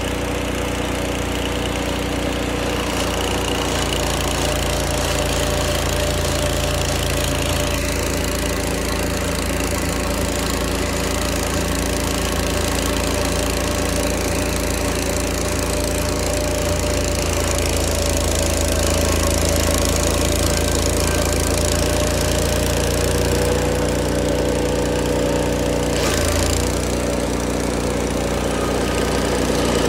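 Old Vermeer stump grinder's engine running steadily, with a brief change in its note near the end.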